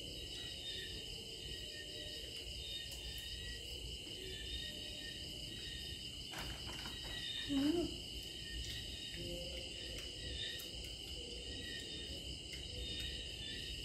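A steady, high chorus of night insects such as crickets chirping, with one short rising hum from a person a little past halfway.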